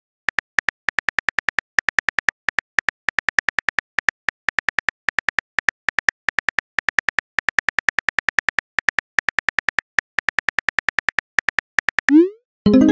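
Simulated phone-keyboard typing clicks from a texting-story app, about five quick clicks a second as a message is typed out. Near the end comes a short rising swoosh, the message-send sound, and a tone starts.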